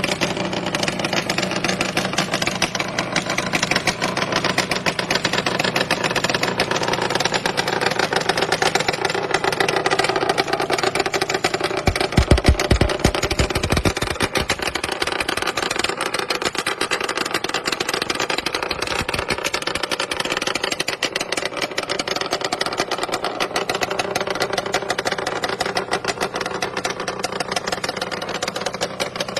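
Yamaha engine idling with a rapid, even pulse, and a short, louder burst of throttle about twelve seconds in.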